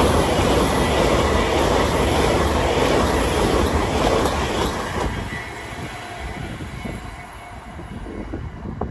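Great Western Railway passenger train passing at speed close by: loud rushing and rumbling of wheels on rails, fading from about five seconds in as the train draws away.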